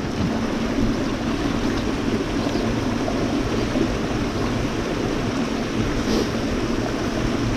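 Steady rushing of river water pouring over and between boulders.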